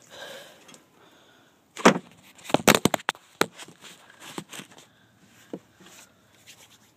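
A quick run of loud knocks and clatter about two seconds in, then a few lighter taps: hard objects being handled and knocked together.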